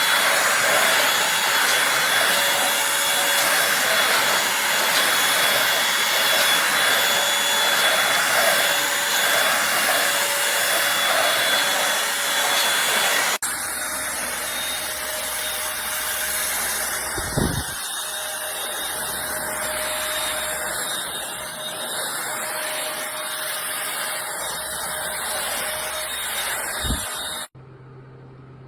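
Eureka Blaze stick vacuum running with a steady whine and rush of air. About halfway it cuts abruptly to a quieter run with two low bumps, and near the end it drops to a faint low hum.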